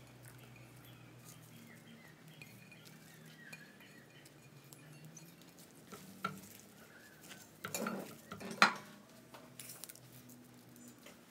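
Kitchen handling sounds as herbs and chillies go into a glass mixing bowl: a light click about six seconds in, then a short cluster of knocks and clinks of dishware around eight seconds in, the last the loudest, over a faint low hum.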